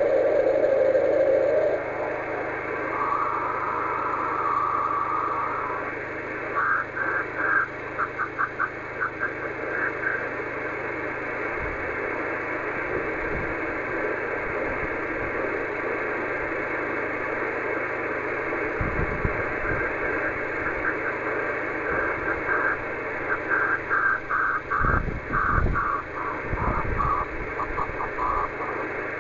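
Radio receiver audio of the OH3SHF 10 GHz beacon scattered off rain: a steady hiss of receiver noise with the beacon's tone in it, rising in pitch from low to higher about three seconds in as the dish is turned. Twice the tone is keyed on and off in short and long pulses of Morse identification. The pitch is set by the Doppler shift from wind-driven rain. A few low thumps come in the second half.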